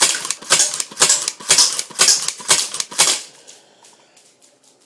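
Umarex Beretta M12S spring-powered airsoft pistol slam-firing: the action is worked rapidly with the trigger held down, each stroke cocking the spring and firing a shot with a sharp clack, about two a second. The shots stop about three seconds in.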